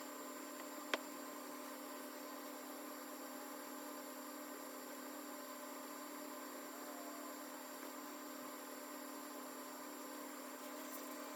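Quiet, steady electrical hum and hiss of room tone, with a single sharp click about a second in.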